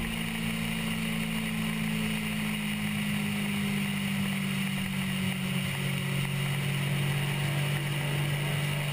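Honda RC51's V-twin engine running at a steady highway cruise, with wind and road noise rushing past.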